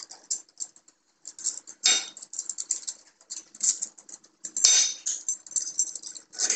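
Hands handling small metal light-fixture parts and wires: irregular light clicks, taps and rustling as the lamp wires are fed through a threaded metal bolt, with a few louder clatters.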